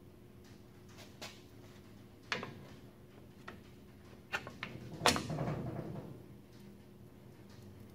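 Metal clinks and taps of drum-brake hardware (hold-down pin, cup and spring) and pliers being handled at the brake backing plate, about six in all, the loudest about five seconds in with a short ring.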